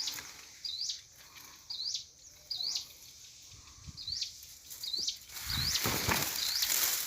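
A small bird repeating a short, high chirp that sweeps upward, a little more than once a second. About five seconds in, a rustling noise joins it.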